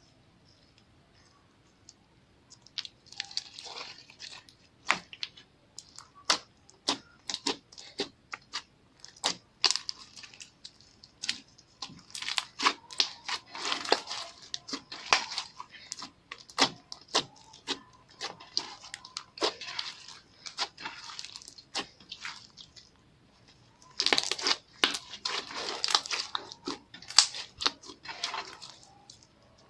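Slime being kneaded and stretched by hand, with many sharp clicks and crackling pops that come in busy spells after a quiet start of about two seconds.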